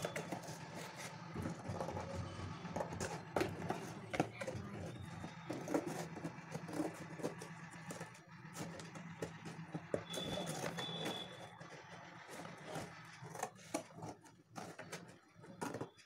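Scissors snipping through a thin cardboard box in irregular crunching cuts, with the box rustling as it is turned in the hands. A low steady hum runs underneath.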